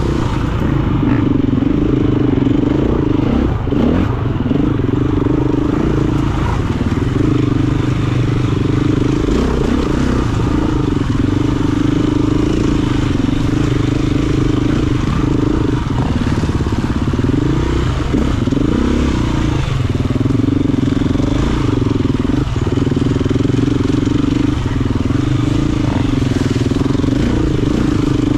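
KTM EXC-F 350 single-cylinder four-stroke dirt-bike engine running hard under race load, its pitch rising and falling with the throttle, with a few brief drops as the rider backs off.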